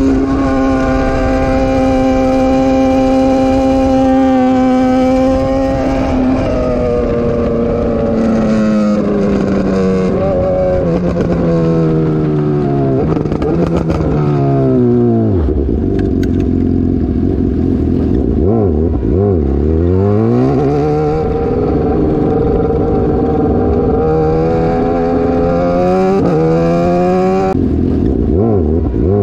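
Sport motorcycle engine heard from on board the bike, holding steady revs for the first several seconds, then revs falling away as it slows. Later the revs drop low and climb again quickly a few times.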